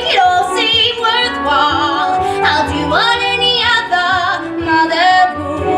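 Female voices singing a musical-theatre number over backing music, with held, wavering notes and a rising swoop in pitch about three seconds in.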